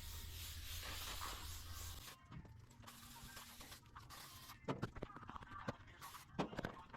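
Aerosol can of insect repellent spraying in a steady hiss for about two seconds, then a few light knocks and clicks of handling.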